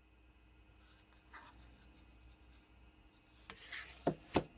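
A quiet room with faint handling and rubbing, then two sharp light knocks near the end as a small project box is set down on a desk.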